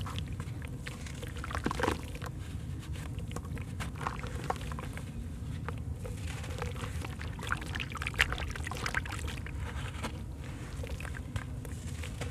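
Wet sand-cement lumps crumbling and crackling in a hand, with grit and broken pieces splashing and trickling into shallow water, over a steady low rumble.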